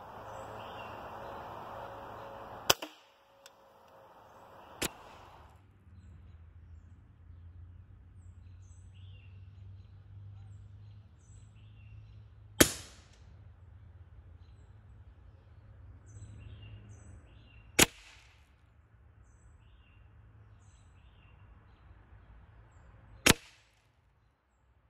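Hatsan Invader Auto .25-calibre pre-charged pneumatic semi-auto air rifle firing single shots: five sharp cracks several seconds apart, the last three the loudest and evenly spaced about five seconds apart.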